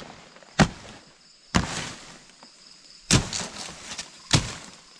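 A blade chopping into banana stalks and undergrowth: four sharp chops about a second apart, each followed by a brief rustle of leaves.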